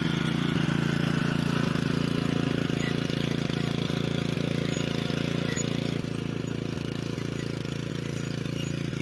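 Honda FJ500 walk-behind rotary tiller, its single-cylinder four-stroke Honda GX160 engine running steadily under load while the tines churn the soil. The engine eases off slightly about two-thirds of the way through.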